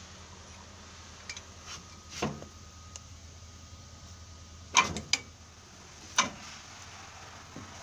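Scattered clinks and knocks of a cylinder liner installer tool being worked in a Caterpillar 3512 engine block's bore, the loudest two close together about five seconds in and another a second later, over a low steady hum.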